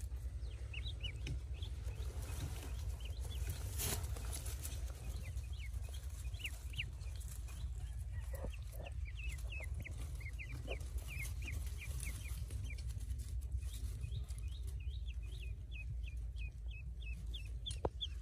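Pekin ducklings peeping: many short, high peeps, scattered at first and coming thick and fast in the last few seconds, over a steady low rumble.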